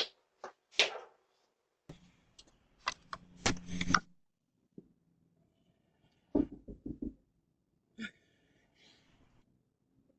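Scattered clicks and rustling handling noise, then a rapid run of about five knocks on a door a little over six seconds in.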